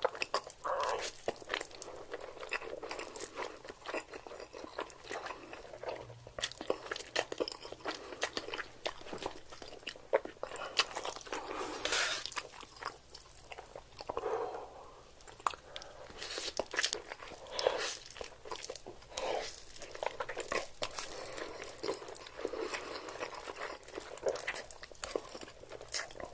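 Close-miked eating of crispy Korean fried chicken: crunchy bites followed by steady chewing, with many crisp crackles all through.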